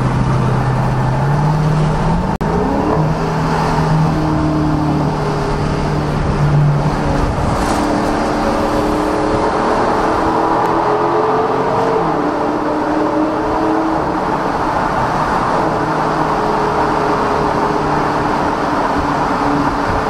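Dodge Charger Scat Pack's 6.4-litre HEMI V8 exhaust heard from inside the car with the windows open, pulling up through the gears: the engine note rises, then steps to a new pitch at each change. The car drives into a road tunnel partway through, with road noise under the engine.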